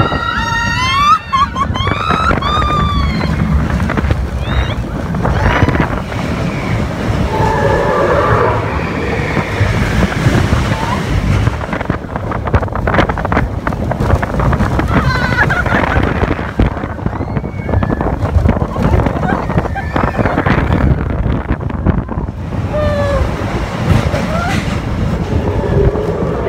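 Roller coaster train rumbling fast along its steel track, with rushing wind buffeting the phone microphone. Riders scream in a cluster during the first few seconds, and more scattered screams and shouts follow.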